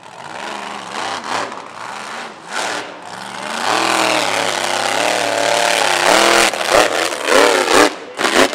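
Mega mud truck's engine revving hard under full throttle through the mud, its pitch climbing and dropping with the throttle. It is loudest in the middle few seconds.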